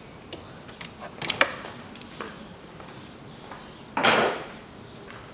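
Hard clicks from an automatic transmission dipstick being screwed home in its tube, a quick cluster of sharp clicks about a second in, then a short scraping rustle about four seconds in.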